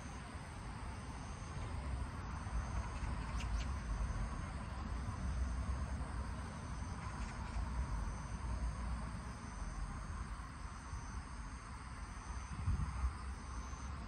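High-pitched insect trilling in the background that breaks off and resumes every second or so, over a low rumble of wind on the microphone.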